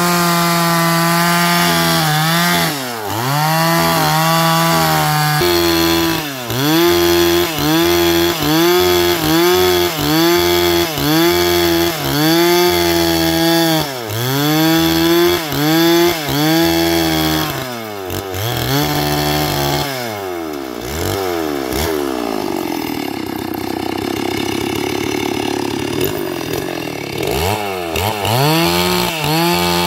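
Stihl chainsaw ripping lengthwise through a log, its engine pitch dipping and recovering about once a second as the chain bites under load. Past twenty seconds in it drops to a lower, quieter run for several seconds, then revs up again near the end.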